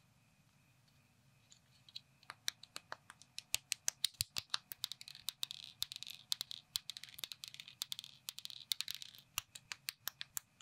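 Small plastic knockoff Lego bricks clicking and scraping as they are handled and pressed together. The sound is a rapid run of sharp clicks that starts about two seconds in.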